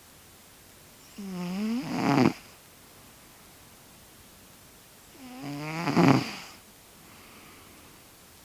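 A sleeping domestic cat snoring: two long snores about four seconds apart, each starting as a low buzz and growing louder to a rattly peak at its end.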